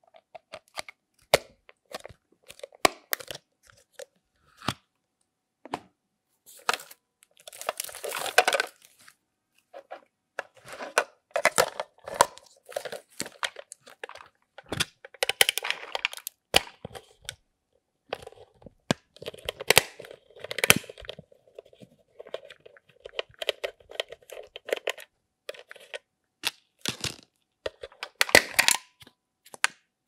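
Small plastic toy appliances being handled: sharp clicks and taps as a plastic battery cover snaps shut, a small screwdriver works a battery-compartment screw, and AA batteries are pressed into the compartment, with a few short stretches of scraping and rustling.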